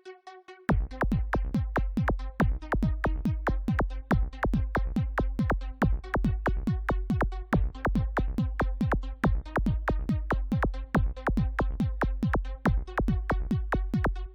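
Electronic dance music: a repeating synthesizer melody over a fast, even drum-machine beat with heavy bass, which kicks in suddenly just under a second in.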